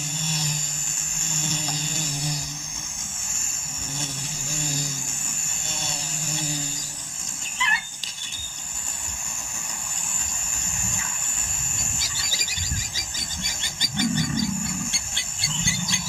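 Bush ambience with a steady high insect drone, joined by fast pulsing chirps in the last few seconds. A low steady hum runs through the first half, and a brief call sounds about eight seconds in.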